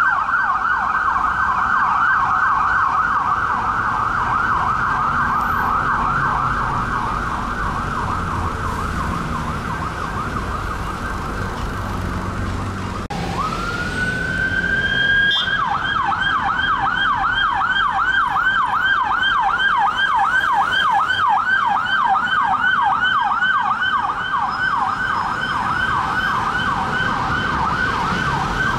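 Police vehicle sirens on a fast yelp. Partway through, the first siren cuts out and a second one, on a Mercedes Viano, winds up in one rising wail and goes straight into a fast yelp, with traffic rumbling underneath.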